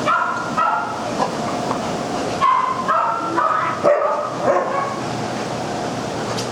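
Dogs barking and yipping in short, high-pitched calls, in a bout at the start and another from about two and a half to five seconds in, over a steady background noise.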